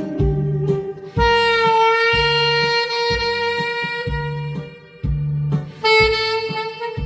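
Saxophone playing a slow melody in long held notes over a backing track with a steady drum-and-bass beat. One note is held for about three and a half seconds, then a short break, and a new note begins about six seconds in.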